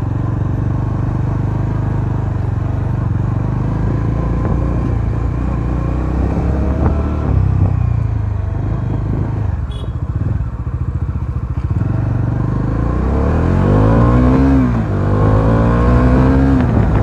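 Bajaj Dominar 400's single-cylinder engine running as the motorcycle is ridden. Near the end its pitch rises and falls twice as it is revved up and eased off.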